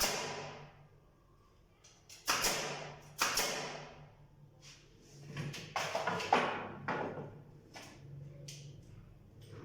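About six sharp strikes on the wooden frame of a bird cage being built, each followed by a short fading tail. Several of them come close together around the middle.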